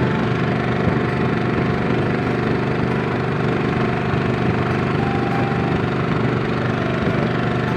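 Small engine running steadily at an even, low speed, with a dense hum.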